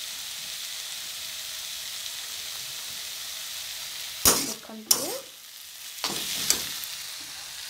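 Stir-fried noodles sizzling in a hot metal wok over a gas flame, a steady frying hiss. About four seconds in, and again a second and two seconds later, a spatula scrapes and clatters against the wok as the noodles are tossed.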